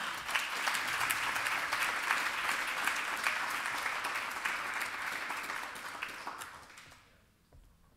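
Audience applauding to welcome a speaker just introduced. The clapping dies away about seven seconds in.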